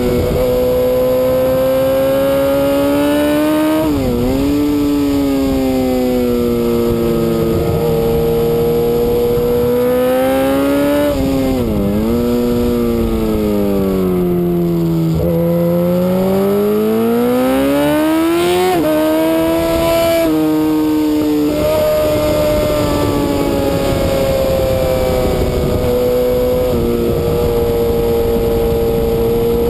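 Suzuki GSX-R1000 superbike's inline-four engine at racing revs, heard from on board: the pitch holds high, drops sharply with quick downshifts about four seconds in and again near twelve seconds, then sags and climbs back through a long corner in the middle, over a steady rush of wind.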